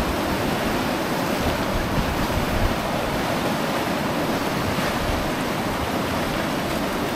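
Whitewater rapids rushing and churning steadily around the raft.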